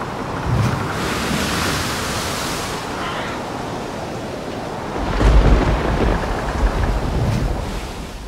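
Storm sound effects of rushing wind and surf. There is a louder hissing rush about a second in, and a heavy low rumble like thunder sets in about five seconds in.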